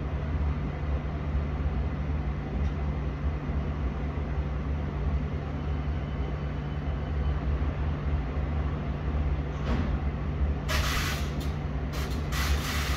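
London Underground S8 Stock train standing at the platform, giving a steady low hum. Near the end come a few short bursts of hissing.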